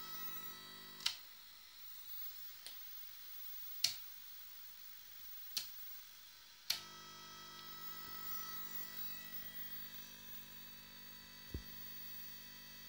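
Steady electrical buzz with many overtones from a CRT television showing test patterns from a MeraTronik K950 TV service pattern generator, broken by five sharp clicks of the generator's slide switches. The low part of the buzz drops out after the first click, about a second in, and comes back with the last click near seven seconds, as the pattern changes; a short low thump comes near the end.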